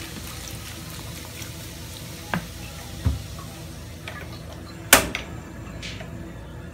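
Soda poured from a plastic bottle into a pan of raw crabs, a light splashing pour, followed by a few sharp knocks and clicks, the loudest about five seconds in.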